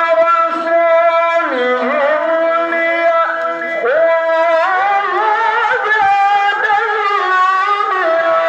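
Male qari reciting the Qur'an in melodic tilawah style, holding long ornamented notes with wavering, sliding pitch in a high register.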